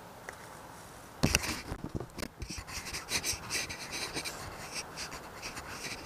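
Irregular scraping and rubbing right against the helmet-mounted camera, starting abruptly about a second in and going on in rough, uneven strokes.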